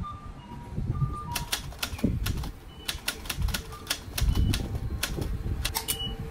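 A rapid, irregular run of sharp clicks and clacks over a low rumble that swells twice, with a few faint short high beeps.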